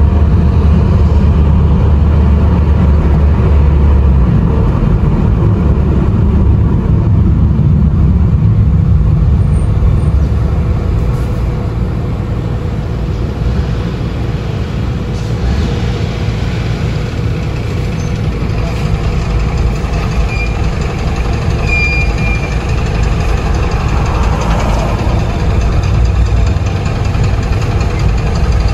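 Car engine and road noise while driving: a steady low rumble that eases somewhat around the middle, then builds again near the end.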